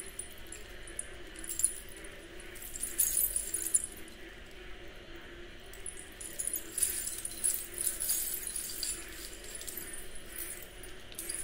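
Oxidised silver-tone necklace with small dangling metal beads jingling as it is handled and held up, in a few short bursts of light metallic clinking.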